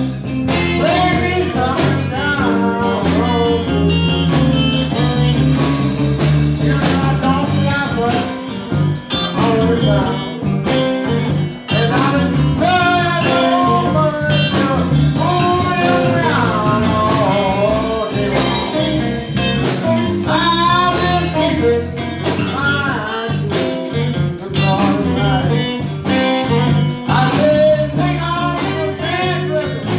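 Live electric blues band playing: a man singing into a microphone over electric bass, guitar and drums.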